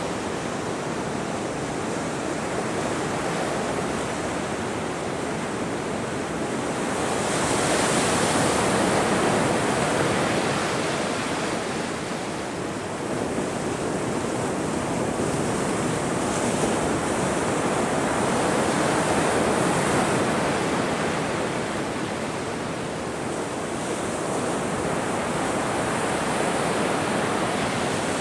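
Ocean surf: waves breaking and washing up the shore as a continuous rushing that swells louder and eases off every ten seconds or so.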